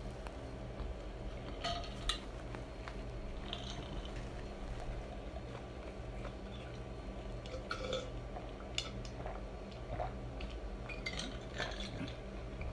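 Ice cubes clinking in a tall glass of iced drink as it is lifted, drunk from and tilted, in a few scattered sharp clinks over a steady low hum.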